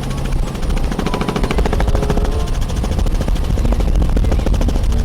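Motorboat engine running with a rapid, even pulsing over a steady low rumble, a boat-engine sound for the toy patrol boat.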